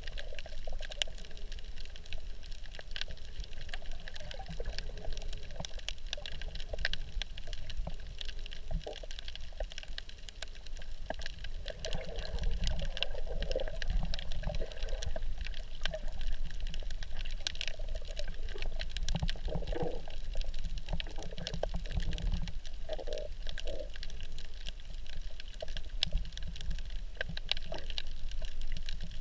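Muffled underwater water noise picked up by a GoPro below the surface: steady sloshing and bubbling with many faint scattered clicks. It grows somewhat louder about twelve seconds in.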